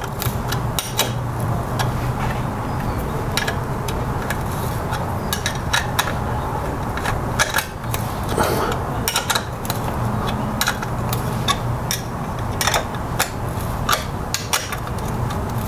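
Irregular sharp metallic clicks and clinks of wrenches on the nut and bolt of an air-conditioning compressor's belt adjuster as the nut is tightened to lock the belt tension, over a steady low hum.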